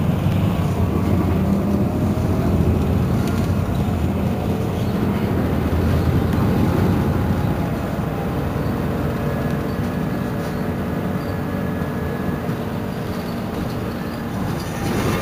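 Heuliez GX 327 city bus under way: a steady low engine and running rumble with a faint whine above it, easing slightly in the second half.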